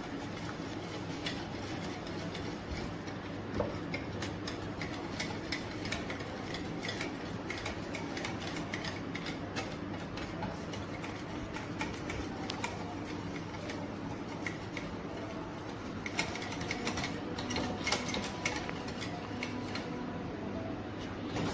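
Utensil stirring a cornflour and black-pepper coating mix in a bowl, a rapid run of clicks and taps against the bowl, over a steady low hum.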